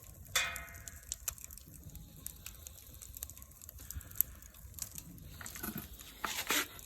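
Wood fire crackling in a fire pit, with scattered sharp pops. There is a brief pitched squeak about half a second in and a louder rustle near the end.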